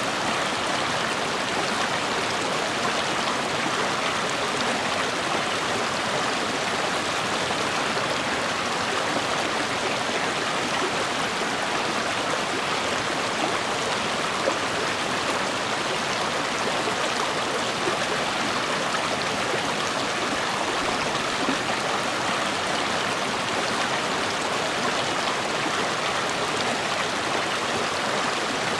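A river or stream flowing over rocks: a steady, even rush of water.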